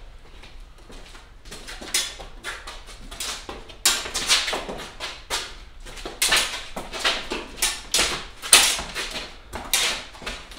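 Fencers' footwork on a concrete floor: a run of quick shoe scuffs and taps, sparse at first and coming thick and loud from about four seconds in.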